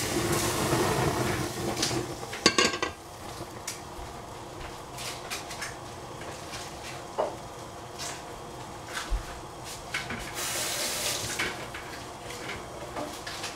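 Kitchen clatter of pots and utensils: a rustling, clinking start with a sharp clatter about two and a half seconds in, then scattered light clinks over a low steady hiss as the empty stainless steel pot heats on the burner, with a short hiss near the end.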